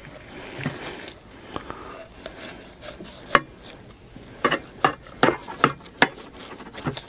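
Knife cutting fat and skin off a raw chicken, with sharp clicks and knocks, one a little before halfway and then a run of them about two or three a second near the end.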